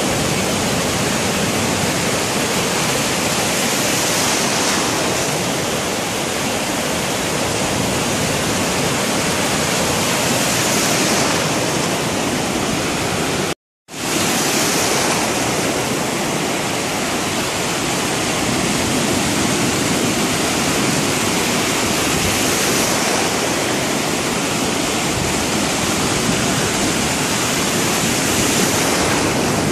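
Ocean surf: a steady rushing wash of breaking waves and foam that swells every several seconds as waves break and run in. The sound cuts out completely for a moment about halfway through.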